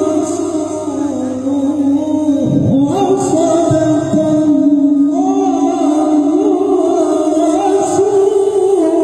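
A male qari reciting the Quran in tilawah style, drawing out long melodic phrases with ornamented pitch turns and a brief breath about two and a half seconds in.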